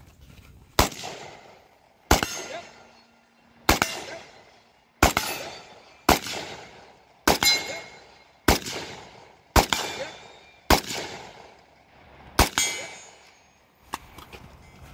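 About ten single rifle shots from an AKS-74 in 5.45×39mm, one every one to one and a half seconds, each followed by the ringing of a steel target plate being hit.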